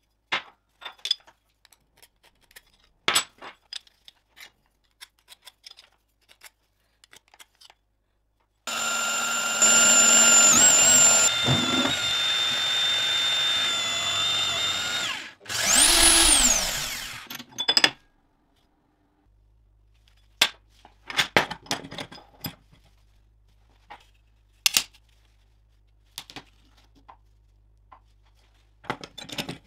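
Steel parts handled and set down with scattered light clicks and taps. About nine seconds in, a drill starts and runs steadily for about six seconds, drilling a steel piece held in a machine vise. It then runs once more for under two seconds, falling in pitch as it winds down, and more clicks and knocks of metal parts and clamps being positioned follow.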